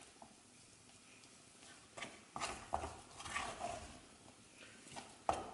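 Wooden spatula stirring and beating thick choux paste in a stainless steel saucepan, giving a series of soft, irregular knocks from about two seconds in. The paste is cooked: it has pulled together into a ball with a crust forming on the pan's bottom.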